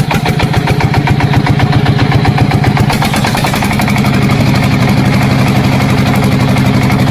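Small electric motor of a miniature DIY tractor borewell drilling model running with a fast, even buzzing hum. It settles into a steady pitch a few seconds in.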